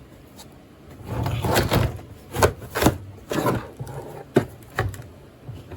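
Metal tool pieces being handled and fitted: a scraping rustle about a second in, then a series of sharp clanks and knocks.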